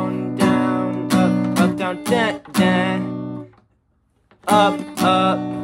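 Acoustic guitar strumming chords, a run of strums that ring on, then the strings are damped to silence for about a second before two more strums near the end.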